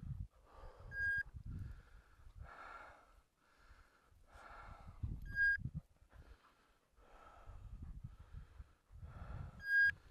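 A person breathing hard with footsteps on dry grass, walking a hillside. Three short high beeps come about four seconds apart; the last two are the loudest sounds.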